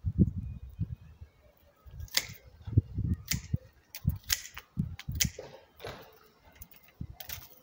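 Hand pruning shears (secateurs) snipping through thin peach branches: several sharp snips about a second apart, each cut closing with a crisp click.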